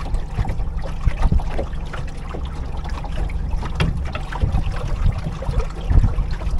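Water splashing and lapping against the hull of a small boat under way, with wind rumbling on the microphone.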